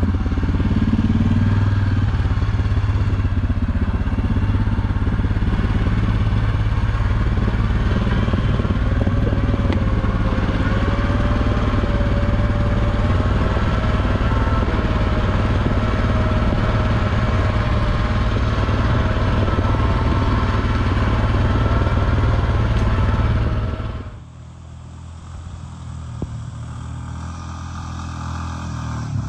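ATV engine running under way, heard close up from the riding machine, its pitch wandering with the throttle. About 24 seconds in the sound cuts to a quieter ATV engine approaching along the trail, growing steadily louder.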